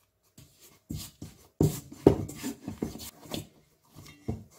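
Yeast dough being mixed and kneaded by hand in a stainless steel bowl, with a silicone spatula scraping the bowl: a run of irregular thuds and scrapes, the loudest about two seconds in.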